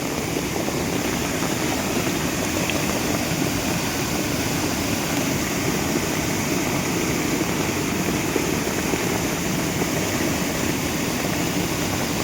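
Swollen rainy-season mountain stream rushing steadily as fast, high white water pours over a drop.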